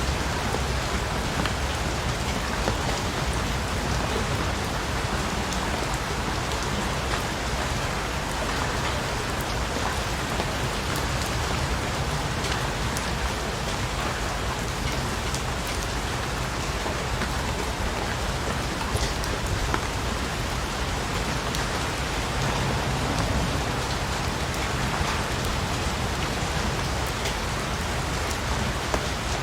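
Steady rain falling on a surface, an even hiss with many small drop ticks through it.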